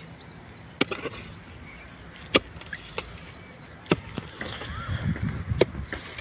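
A digging hoe striking hard, dry soil four times, about one and a half seconds apart, with smaller knocks of loosened earth between, as a small pit is dug.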